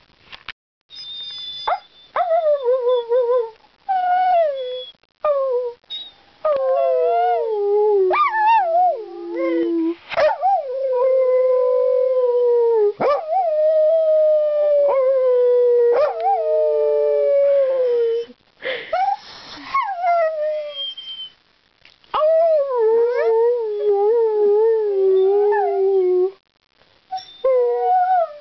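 A dog howling in a long series of pitched, wavering calls: short whines and yelps at first, then long drawn-out howls, the longest lasting about seven seconds with its pitch sagging slowly, and another wobbling up and down near the end.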